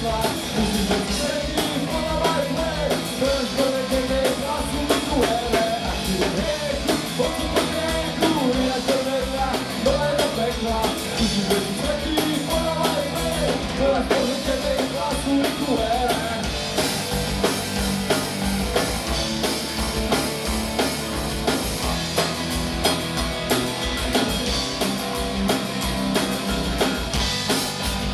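Punk rock band playing live: a fast, steady drum kit beat with electric guitars, and a voice singing over it, most clearly in the first half.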